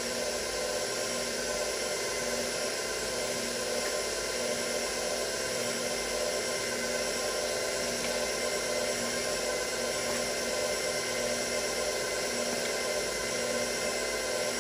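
KitchenAid stand mixer running steadily, its motor giving an even hum with a whine while the wire whisk beats sponge cake batter.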